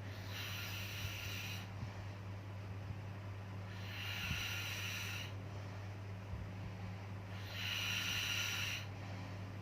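Slow, even snoring: three hissing breaths, each lasting a little over a second, about every three and a half seconds, over a steady low hum.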